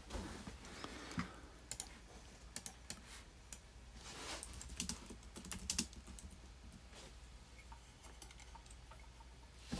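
Faint typing on a computer keyboard: irregular key clicks as a search is typed into a web browser.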